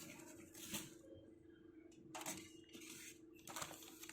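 Faint rustling and handling noises, a few soft brushes and scrapes, as the contents are taken out of the microwave oven's cavity, over a faint steady hum.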